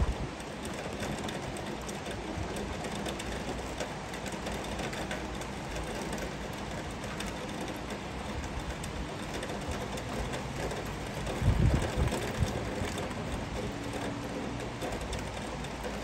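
Heavy rain falling steadily, a dense even hiss. About three quarters of the way through, a low rumble swells for about a second and fades.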